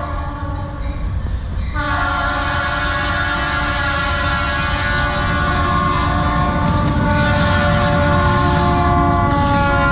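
Vintage diesel switcher locomotive sounding its air horn in one long continuous blast, loud from about two seconds in, over the low rumble of the engine and wheels. The horn's pitch drops slightly near the end as the locomotive passes.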